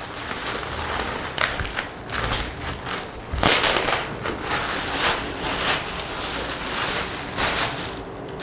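Thin clear plastic bag crinkling and rustling in irregular bursts as it is pulled and worked off a boxed subwoofer.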